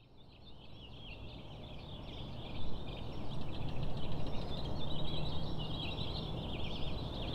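A chorus of many birds chirping and twittering over a steady low city rumble, fading in from silence over the first couple of seconds.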